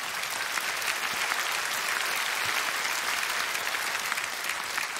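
Studio audience applauding steadily after a punchline, a dense even patter of many hands clapping.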